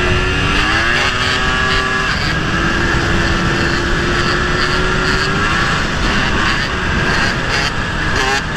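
Dirt bike engine revving, its pitch climbing over the first two seconds, then held at steady revs through a wheelie, and climbing again near the end.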